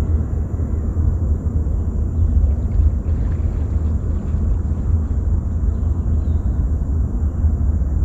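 A steady, loud low rumble, uneven in strength, with a fainter hiss above it.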